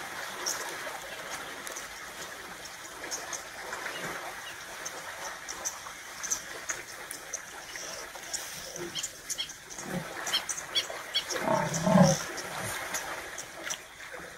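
Cape buffalo herd at a waterhole, with one low, drawn-out bellowing call about twelve seconds in, the loudest sound, and a weaker low grunt shortly before it. Many short high chirps sound throughout in the background.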